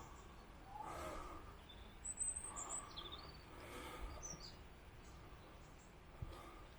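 Faint bird chirps: a few short, high calls in the middle stretch, over quiet background noise, with a small knock near the end.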